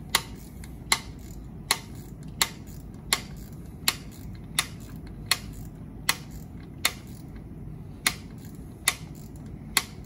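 Air disc brake caliper's manual adjuster clicking as it is wound back with a wrench on a shear adapter, about one sharp click every three-quarters of a second: the tappets are being retracted into their boots.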